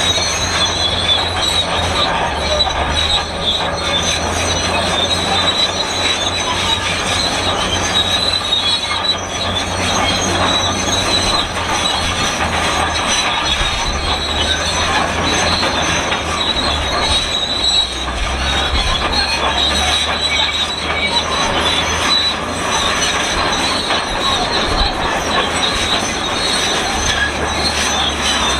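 Shantui SD32 crawler bulldozer squeaking and screeching continuously, metal on metal, like an ungreased cart, over the low steady drone of its diesel engine.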